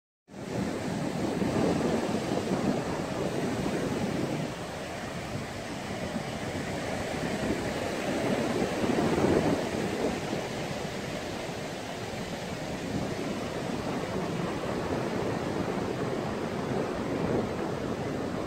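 Ocean surf from small waves breaking along a flat sandy beach: a steady rushing wash that swells and eases a few times.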